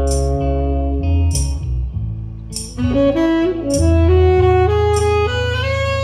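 Live saxophone solo over a band, playing a melodic line that climbs step by step about halfway through. Bass and drums carry on underneath, with a cymbal struck about every second and a bit.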